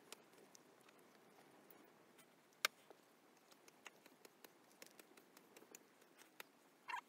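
A cat grooming itself, its tongue making a run of faint, wet licking clicks, with one sharper click a little before the middle and a short louder sound near the end.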